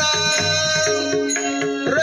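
Devotional kirtan music: a sustained melody with steady held notes over a beat of drum strokes, carrying on between sung lines of the abhang.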